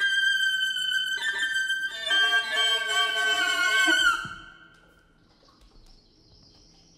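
Saxophone quartet playing improvised sustained long tones, several held notes overlapping, with more entering about two seconds in. The playing stops about four seconds in, leaving only a faint, thin high tone.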